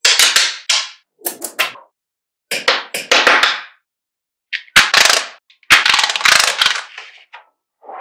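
Small magnetic balls snapping together and clattering against each other as rows of them are joined and stacked. The sound comes as a string of bursts, each a sharp snap trailing into a rattle, with the longest and loudest runs in the second half.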